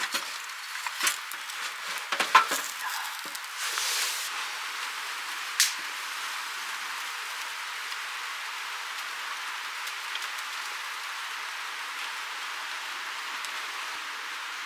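Split sticks of firewood knocking and clattering as they are fed into a small metal wood-burning stove, with one more sharp click a couple of seconds later. After that, a steady soft hiss.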